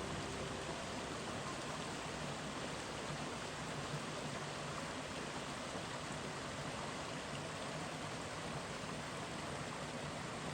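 A small creek running: a steady rush of flowing water.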